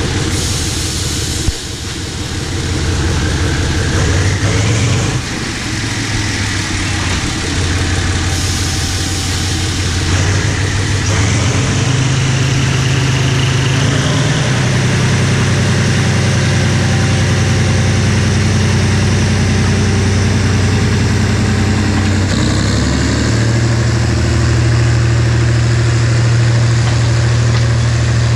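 GE GEK-class diesel-electric shunting locomotive No. 4011 running close by as it pulls passenger coaches, a steady low engine note. The engine steps up in pitch and loudness about twelve seconds in and again around twenty-three seconds in.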